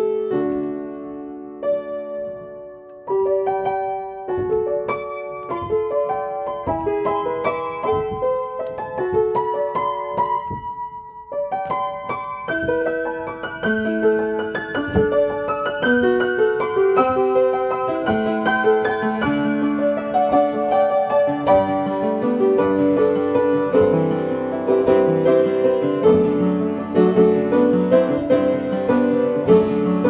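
Upright piano played solo: a slow melody of separate, held notes, thinning to a single held note about a third of the way through, then growing fuller and busier with lower notes over the last third.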